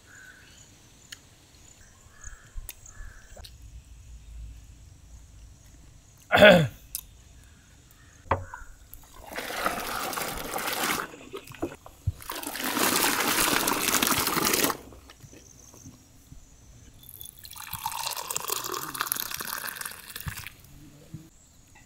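Cow's milk poured in a thick stream from a steel pot into a steel basin, then into a steel tumbler, splashing: three pours of about two to three seconds each, starting about nine seconds in. A single brief loud sound comes about six seconds in.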